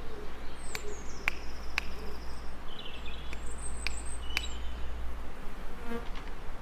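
Small birds calling with high, thin whistles and short chirps, joined by several sharp ticks, over a steady hiss of background noise.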